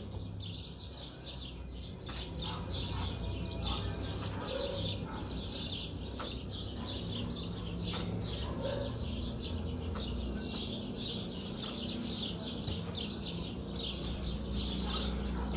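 A chorus of small birds chirping, with short high falling chirps several times a second throughout, over a low steady rumble.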